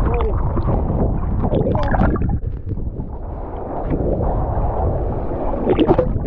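Low, fluctuating rumbling noise, with brief muffled voices at the start and again near the end.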